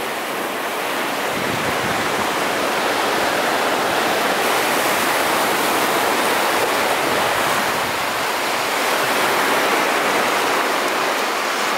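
Sea surf washing in over sand and stones, a steady rushing hiss with no break.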